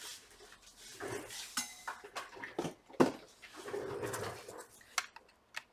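Hard objects being handled and set down on a workbench: a run of irregular clicks, knocks and light clatter with some rustling, the loudest knock about three seconds in.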